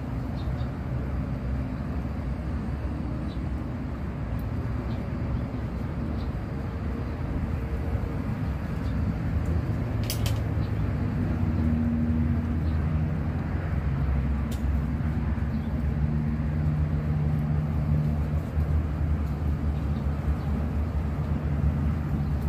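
Steady low outdoor rumble with a faint hum, with a single sharp click about ten seconds in.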